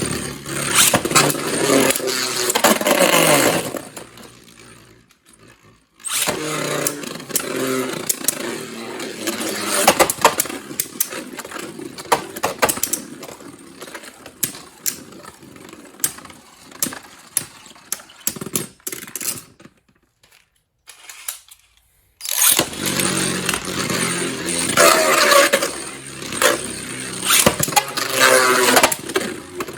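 Beyblade Burst spinning tops launched into a plastic stadium, whirring and clattering against each other with sharp clicking hits. The sound fades out around four seconds in and again near nineteen seconds, each time starting again suddenly with a new launch.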